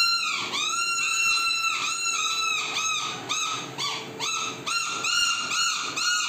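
Two small plastic toy horns blown by children, a rapid run of short high-pitched toots, about three a second, each bending up and then slightly down in pitch, the two horns sometimes sounding together.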